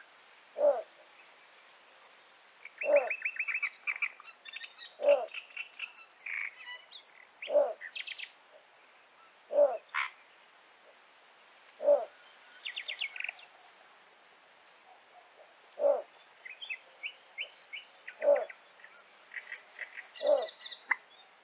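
Little bittern's song: a short, deep croak repeated about every two seconds, nine times, with a longer pause midway. Small birds give fast, higher-pitched chattering phrases in between.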